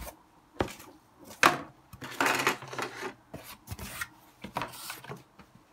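Sheets of cardboard being handled and moved on a table: a string of sharp knocks and short scraping rustles, the loudest knock about a second and a half in.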